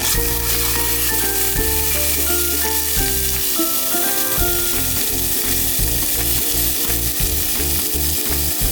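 Food sizzling as it fries in a pan, a steady hiss, under background music with a bass line and short melodic notes.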